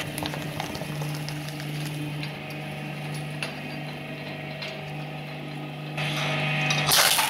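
Twin-shaft industrial shredder running with a steady motor hum, its toothed rotors chewing paper with scattered clicks and rattles. Near the end comes a sudden loud crunch.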